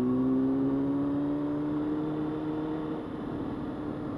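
Honda CBR600F4i's inline-four engine pulling steadily while riding, its pitch rising slowly for about three seconds, then easing off slightly.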